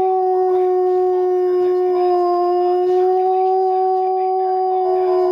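A dog howling along with a tornado warning siren, holding one long, steady, high note that matches the siren's pitch. A second, different pitch joins near the end.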